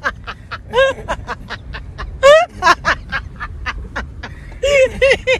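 A person's voice in short, rapid bursts over the low rumble of a car driving, heard from inside the cabin.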